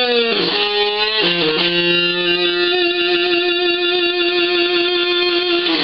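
Electric guitar played through a maxed-out breadboarded Schumann Two Face fuzz (NPN side, 1306 transistors), heavily distorted. A few bent notes come first, then one long sustained note that cuts off at the end. The player calls it a nice octave bloom on some notes.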